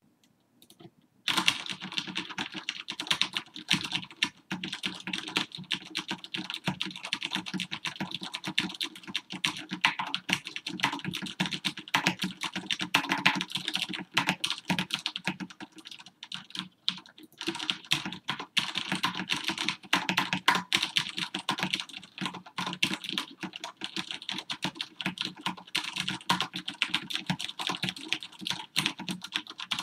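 Continuous fast typing on a QPAD MK-50 mechanical keyboard with Cherry MX Red linear switches: a dense, irregular stream of keystrokes going tok-tok. It starts about a second in and pauses briefly around the middle.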